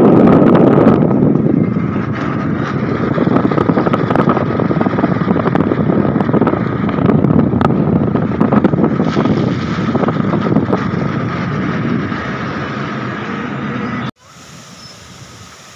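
Wind buffeting the microphone at an open car window over the noise of the moving car, thick with gusty knocks. Near the end it cuts off abruptly to a faint steady hiss.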